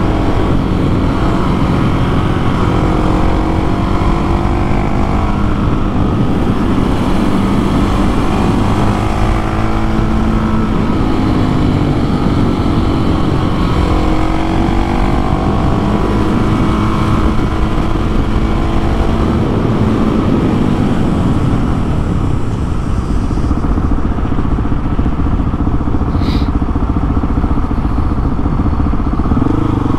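Husqvarna 701 Supermoto's single-cylinder four-stroke engine running under way, its pitch rising and falling again and again as the bike accelerates, shifts and backs off.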